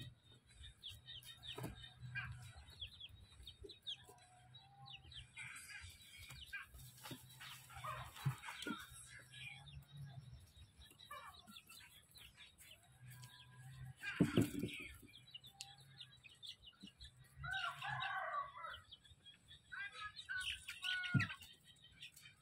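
Farmyard poultry calling: a run of short clucks and calls, loudest about 14 and 18 seconds in.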